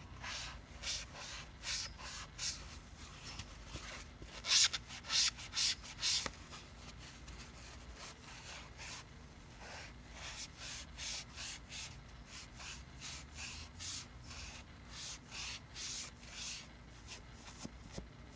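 Wet magic eraser (melamine foam) scrubbing an oxidized tobacco pipe stem in short rubbing strokes, about two a second, in two spells with a pause of a few seconds between them. The scrubbing is lifting off the stem's surface oxidation.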